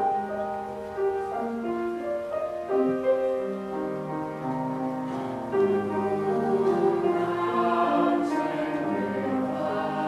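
Mixed choir singing slow, held chords in several parts, the notes changing every second or so, with piano accompaniment.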